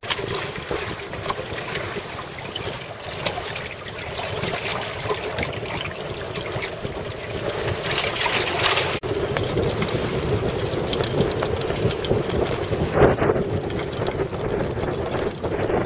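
Wind buffeting the camera microphone over water rushing past the hull of a trailer-sailer yacht under way, with a sudden brief break about nine seconds in.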